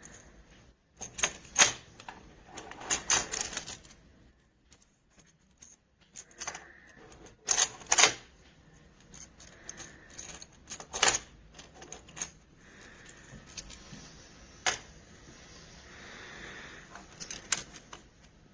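Small plastic magnetic building blocks clicking and clacking as they are handled and snapped together, in scattered sharp knocks, some single and some in quick clusters.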